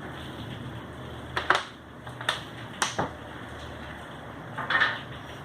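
A handful of short, sharp knocks and clatters of household objects being handled, spaced irregularly, with a longer clatter near the end, over a steady background hiss.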